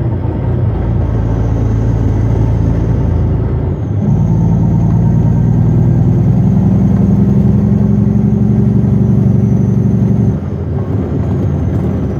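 A loaded Western Star logging truck's diesel engine pulling steadily. About four seconds in, its engine note steps up and grows louder, and about ten seconds in it falls back.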